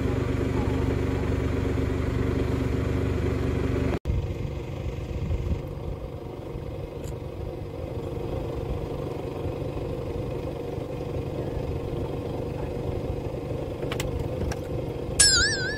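A fishing boat's engine running steadily with a low hum. Its tone changes abruptly about four seconds in, and a brief, loud, warbling high tone sounds near the end.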